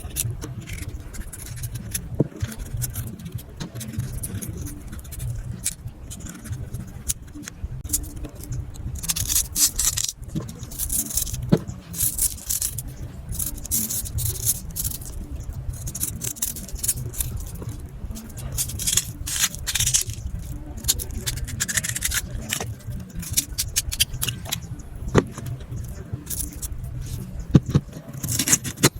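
Knife scraping the skin off a pumpkin in irregular strokes, with a few sharp knocks of the blade.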